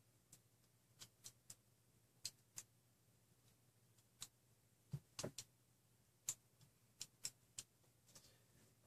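Faint, sharp clicks and ticks at an irregular pace, about fifteen in all, from hands handling small wire connectors and plastic parts, with a slightly duller knock about five seconds in. A faint steady hum lies underneath.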